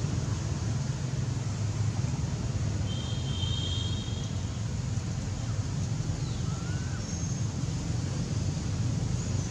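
Steady low rumble of wind buffeting the microphone outdoors, with a few faint high chirps about three seconds in and again near the end.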